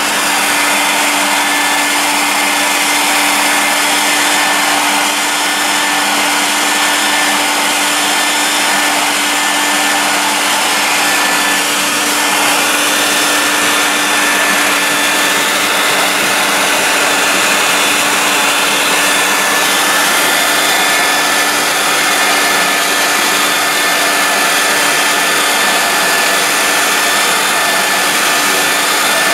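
Steady drone of a drapery-cleaning machine's vacuum motor, with a constant hum, as its hose wand is worked over hanging curtain fabric.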